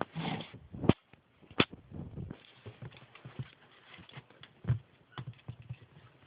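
Ferret scrabbling about while playing with a toy: an irregular run of small knocks and scuffles, with sharper clicks about one and one and a half seconds in and again near five seconds.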